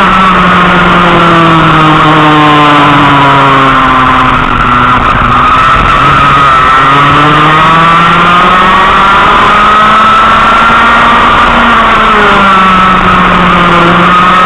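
Racing kart engine heard onboard at full throttle, very loud. Its pitch falls about four seconds in as it slows for a corner, climbs back up over the next several seconds, and drops again near the end.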